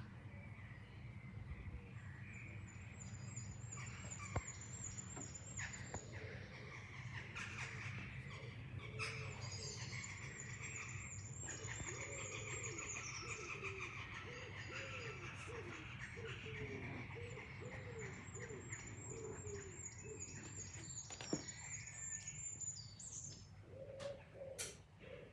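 Morning birdsong: small birds chirping and singing. Through the middle a pigeon coos in a run of low repeated notes. A steady low hum runs underneath.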